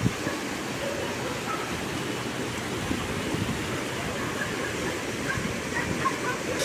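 Fast-flowing river water rushing over rocks below a bridge: a steady, even rush.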